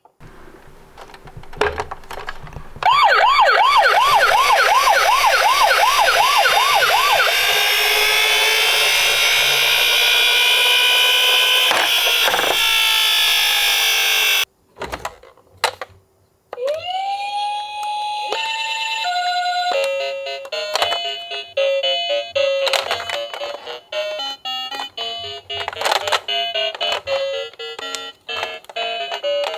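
Electronic toy ambulance siren: a fast up-and-down wail that then slides slowly downward and cuts off. A tune of short electronic beeping notes follows.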